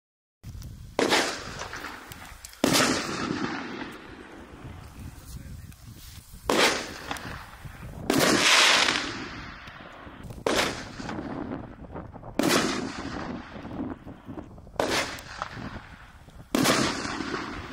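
1.75-inch preloaded 60 g canister shells firing in succession: about eight sharp bangs from the shells launching and breaking overhead, each trailing off in echo, coming every one to four seconds.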